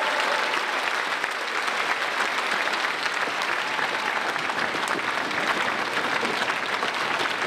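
Audience and cast applauding steadily: a dense, even clatter of many hands clapping.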